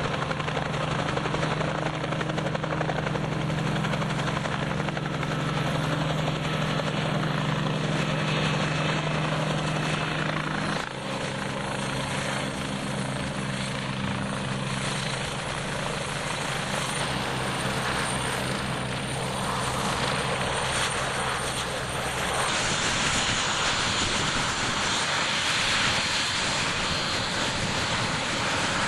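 Turbine helicopters running close by, with a steady engine and rotor drone: first an Alouette II hovering, then, after an abrupt change about eleven seconds in, a Westland Scout AH.1 flying low past. In the last several seconds the sound turns to a broader, brighter jet-engine hiss.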